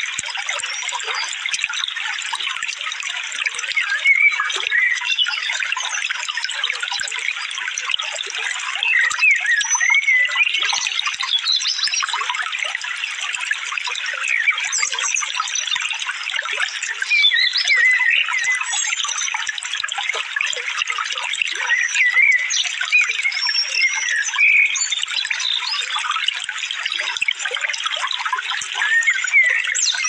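Steady rush of running water, like a stream, with small songbirds chirping and twittering in quick short phrases throughout.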